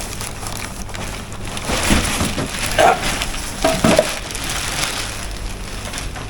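Plastic packaging rustling and crinkling as a portable trolley karaoke speaker is lifted out of its box and unwrapped.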